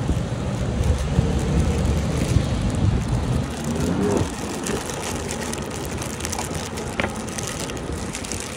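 A plastic zip-lock bag crinkling and rustling as hands open it and slide raw pempek fish cakes out of it, a fine crackle that runs throughout.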